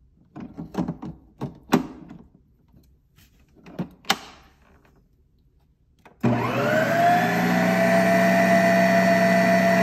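Plastic clicks and knocks as the bowl is twisted and locked into a Ninja Creami ice cream maker, then about six seconds in the machine starts suddenly and runs loud and steady with a whine, processing a frozen pint of ice cream, here a re-spin.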